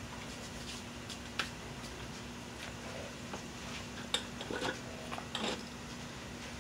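Light metallic clinks and rattles from an IronMind Rolling Thunder handle and its clip as the handle is gripped and shifted on the loaded pin, loudest a little after four seconds in and again about five and a half seconds in. A steady low hum runs underneath.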